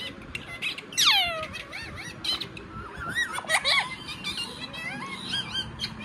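Indian ringneck parrot calls: a loud squawk sweeping down in pitch about a second in, then shorter wavering chirps, with short clicks in between.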